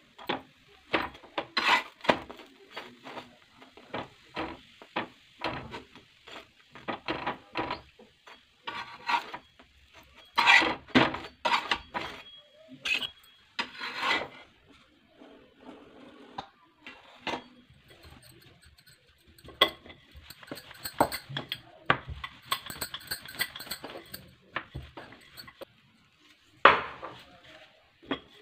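Metal spatula and spoon scraping and clinking against a flat iron tawa as a naan is pressed and turned: irregular scrapes and knocks, with one sharp knock near the end.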